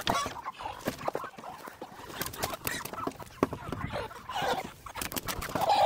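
Chickens clucking and squawking in short, scattered calls while being handled, with repeated sharp knocks and scuffing among them. A louder squawk comes at the very end.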